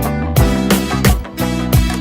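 Upbeat outro music with a steady drum beat and plucked guitar.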